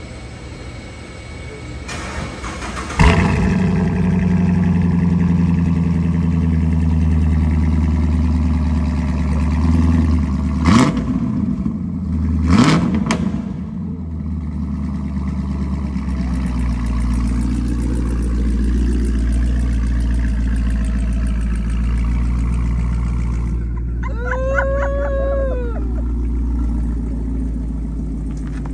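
Chevrolet Camaro 2SS's 6.2-litre V8, breathing through a newly installed aftermarket exhaust, starts up about three seconds in and runs at a high idle. It is blipped twice, around ten and twelve seconds in, then settles to a steady, deeper idle. A brief wavering tone sounds near the end.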